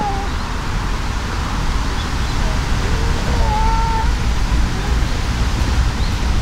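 Cats in a standoff: the end of a drawn-out warning yowl fades out at the start, then one faint short yowl comes about three and a half seconds in, over a steady low rumble.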